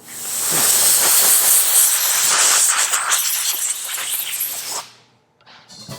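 Compressed air hissing from a blow gun as a generator armature is blown out after cleaning, for about five seconds before it cuts off.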